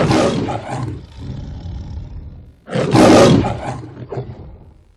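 The MGM logo's lion roar: one roar fades out early on, then a second full roar starts a little under three seconds in and dies away near the end.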